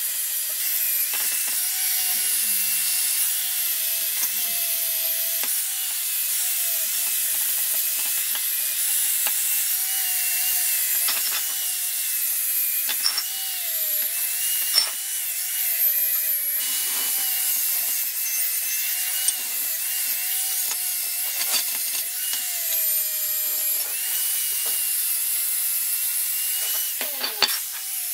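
Makita angle grinder fitted with a wire brush, scrubbing rust off the steel parts of an old vise. The motor's pitch wavers as the brush is pressed on and eased off, over a steady high hiss, with a few sharp ticks.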